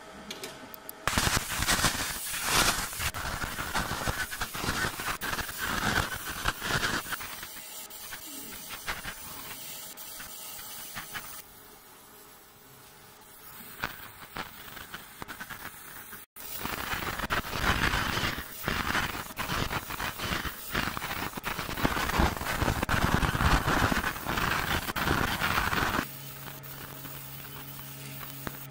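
50 W fiber laser marking machine engraving a brass plate: a loud, fast-crackling hiss comes in two long stretches, with a quieter spell between them. Near the end it drops to a steady low machine hum.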